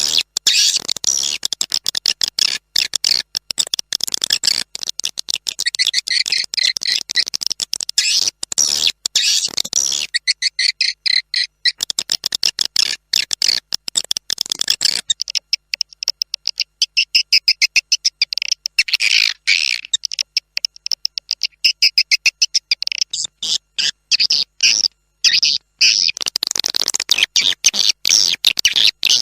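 Swiftlet lure call (suara panggil walet): a recorded, continuous high-pitched twittering of edible-nest swiftlets, a fast stream of short chirps and clicks with a brief thinning partway through.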